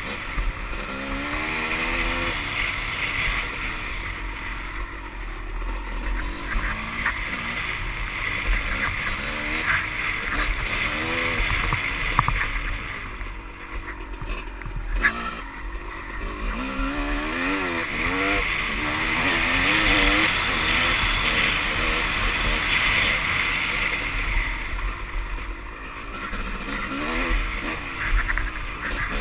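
Dirt bike engine revving up and easing off over and over as it is ridden along a rough trail, its pitch sweeping up and down, with a few knocks from the bike over the ground.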